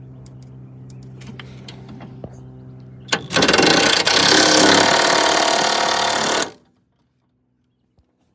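Cordless mid-torque impact wrench hammering on a rusted truck bolt for about three seconds, then stopping abruptly. A steady low hum comes before it.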